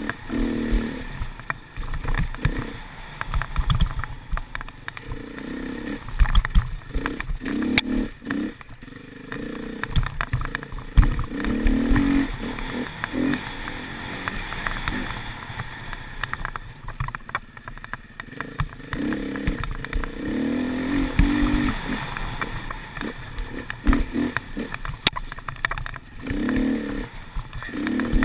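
Dirt bike engine revving up and down in repeated spells as it is ridden hard along a rough trail, with frequent knocks and clatter from the bumps.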